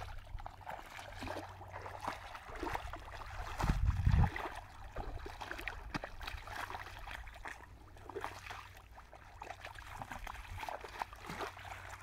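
Bare feet wading through shallow muddy water, with irregular small splashes and squelching steps. A brief dull low rumble about four seconds in is the loudest moment.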